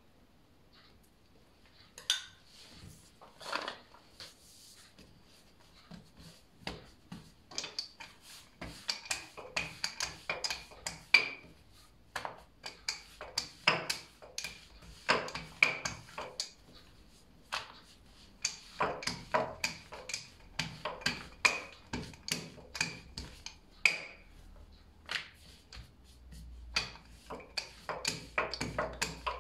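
Wooden rolling pin clicking and knocking against a granite countertop as dough is rolled out into a thin sheet, in quick irregular strokes, some with a faint ringing tone.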